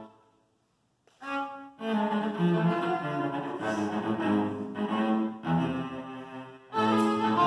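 String quartet of violins, viola and cello playing; the music stops for about a second, a short chord sounds, and after a brief gap the ensemble plays on with sustained bowed notes.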